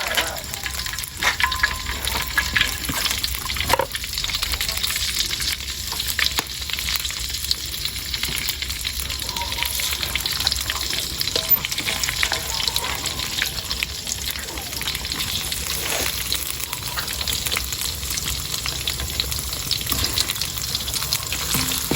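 Food frying in hot oil in a pan: a steady crackling sizzle, with a few sharp clicks near the start.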